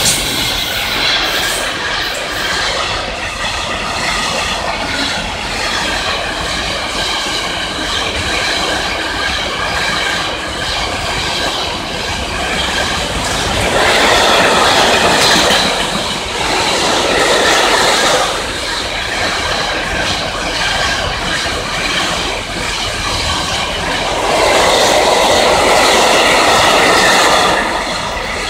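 Container wagons of a long freight train rolling past at speed: a continuous rumble of steel wheels on rail with several steady high tones of wheel squeal over it. It swells louder in stretches around halfway through and again near the end.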